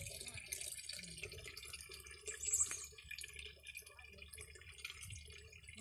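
Spring water trickling out of a rock face and splashing into a shallow pool, a low, uneven running and dripping sound.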